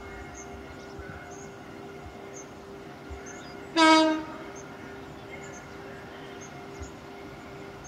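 Class 185 diesel multiple unit approaching with a steady engine drone, sounding one short, loud horn blast about four seconds in.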